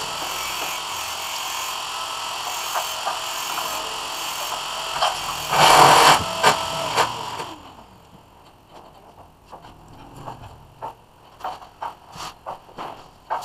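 A steady hiss runs for the first half, with a brief louder rush near the middle, then cuts off suddenly. After that come only scattered small clicks and rustles of cables and a cutting tool being handled.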